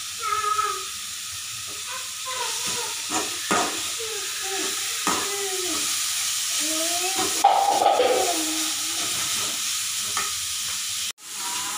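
Shredded vegetables sizzling in hot oil in a metal kadai, stirred and tossed with a metal spatula, with a few short scrapes and knocks of the spatula against the pan. A voice-like sound is heard faintly in the background now and then.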